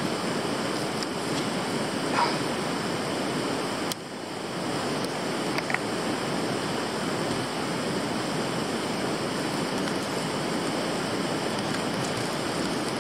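Steady rushing of a mountain river flowing over rocks, with a few faint short clicks on top.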